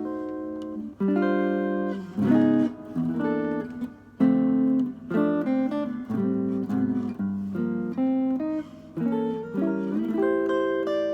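Solo guitar playing an instrumental arrangement of a song, a run of plucked chords changing every half second to a second.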